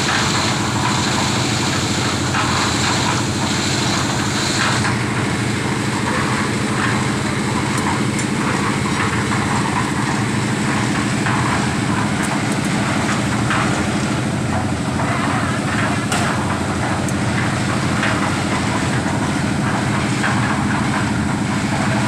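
Engine of a concrete mixer with a lift hopper running steadily at a constant pace and level.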